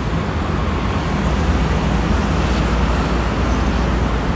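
Steady rumble and hiss of road traffic, with no distinct events.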